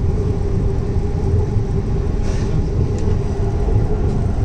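Electric Hyderabad Metro train running between stations, heard from inside the coach: a steady low rumble with a steady droning tone over it, a brief faint hiss about two seconds in and a small click a second later.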